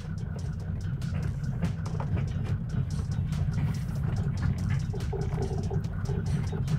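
Coil-spring wheels on a Mercedes G-Class crunching and clicking over ice and slush as the vehicle creeps forward, breaking up the ice, over a steady low engine rumble. The noise is pretty unnerving.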